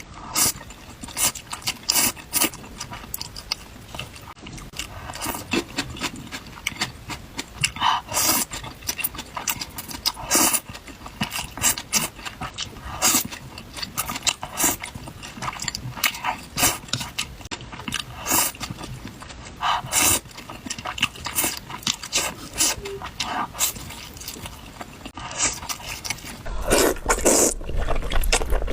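Close-miked eating sounds: noodles slurped and chewed, with wet mouth clicks coming in short, irregular strokes. The sound turns louder and fuller over the last couple of seconds.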